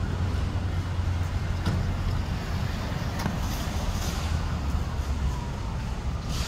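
Steady low rumble of road traffic, with a couple of faint clicks.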